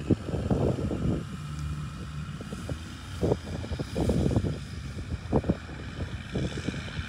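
Wind buffeting the microphone in uneven gusts, over a faint steady engine hum.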